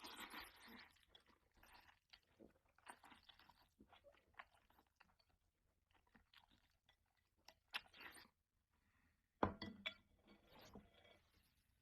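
A person eating noodles: close, quiet chewing and mouth sounds in irregular spurts, with a sharper click toward the end.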